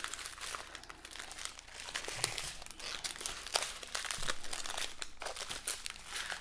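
Small sealed plastic bags of diamond-painting drills, taped together in strips, crinkling and rustling as they are handled, with many small sharp clicks.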